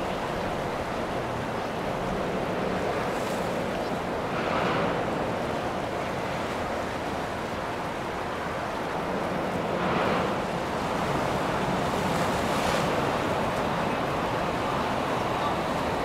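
Steady rush of water and wind on the microphone, swelling briefly three times.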